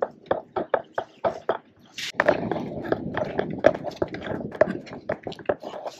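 Irregular run of sharp knocks and clicks, several a second, from cable and fittings being handled at the mast. A rough scraping noise joins in about two seconds in.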